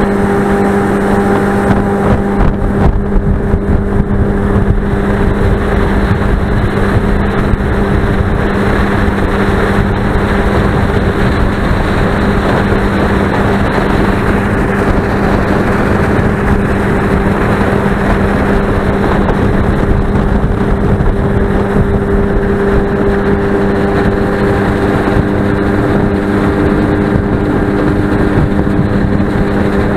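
A boat's motor running steadily, a constant hum at one pitch under a loud rushing noise.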